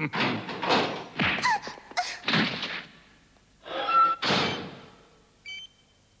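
Animated-series sound effects: a run of dull thuds and swishes, a louder rush about four seconds in, then a few faint high electronic beeps near the end.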